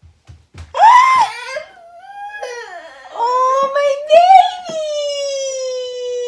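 Toddler boy whining and crying: a loud wail about a second in, more whiny cries, then one long drawn-out whine sliding slowly down in pitch near the end. His mother puts the whining down to hunger.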